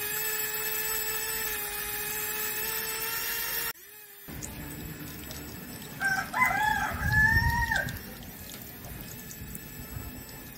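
A small DC hobby motor driving a plastic gear train whines at a steady pitch, then cuts off abruptly. After a short gap a low hiss of the mini water pump and its stream runs on, and about six seconds in a rooster crows once for about two seconds, the loudest sound here.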